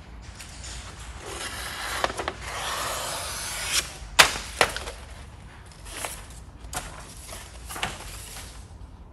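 Paper backing being peeled off a vinyl wrap graphic and handled: a rustling, crackling peel that builds over the first few seconds, two sharp snaps about four seconds in, then lighter paper handling noises.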